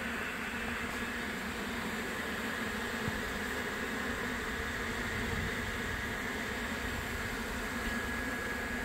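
Honey bee swarm buzzing in flight around a hive box: a steady, continuous hum of thousands of bees in the air as the swarm settles.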